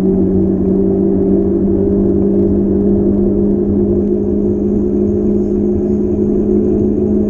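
A motor vehicle running at a steady speed: a constant low hum with a rumble beneath it.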